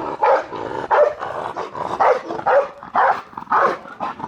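Pit bull barking repeatedly in short, rapid barks, about two a second, in an aggressive outburst at another dog.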